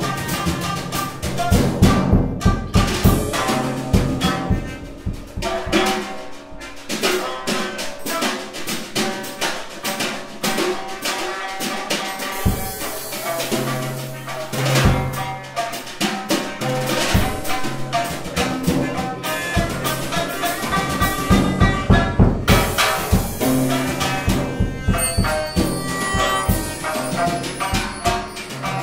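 Music with drums and other percussion, busy with quick strikes and with held tones over them.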